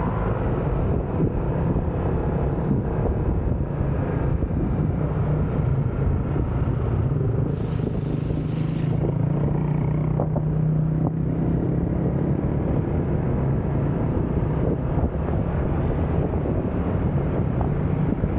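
Small motor scooter being ridden along a city street: steady engine drone with road and wind noise. The engine hum comes through most clearly about halfway through.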